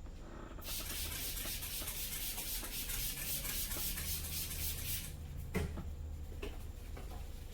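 Fast, vigorous rubbing of hands over a head and hair during a head massage, a dense scrubbing sound that starts about half a second in and stops after about four seconds. A short knock follows soon after.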